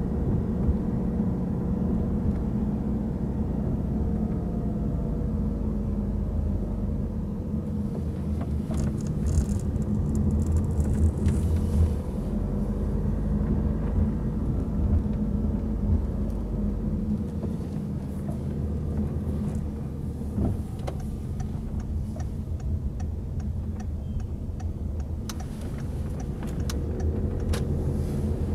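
Peugeot 3008 driving slowly, heard from inside the cabin: a steady low rumble of engine and tyre noise, with the engine note rising and falling gently. A light, regular ticking comes in during the last several seconds.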